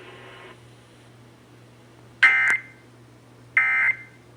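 Emergency Alert System end-of-message (EOM) data signal: two short, harsh digital bursts about 1.3 seconds apart, marking the close of the alert test, over a low mains hum.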